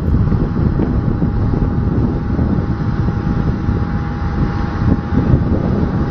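Jet airliner engines running: a steady, loud rumble with a thin, steady high whine on top.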